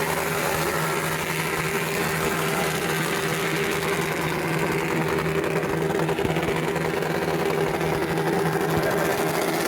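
Honda Super Cub's small single-cylinder four-stroke engine running steadily, with no revving.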